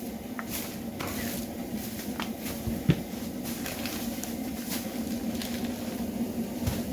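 Light clicks and taps of food being put together on a cooking surface, with one sharper tap about three seconds in, over a steady low hum.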